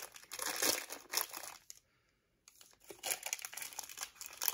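Plastic cookie packaging crinkling as it is handled and opened. The crackle comes on and off and stops briefly about two seconds in.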